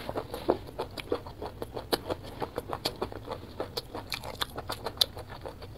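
A person chewing food, with quick wet mouth clicks and smacks several times a second.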